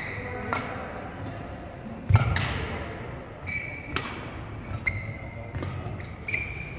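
Badminton rally: sharp racket strikes on a shuttlecock traded back and forth, about six hits roughly a second apart, with court shoes squeaking on the wooden floor between them. The strike about two seconds in is the loudest, with a low thud under it.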